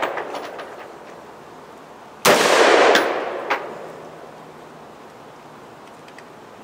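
A single rifle shot from a Colt AR-15 A2 in 5.56 NATO about two seconds in, its report dying away over a second or so, followed by a short sharp tick. The tail of the previous shot fades out at the start.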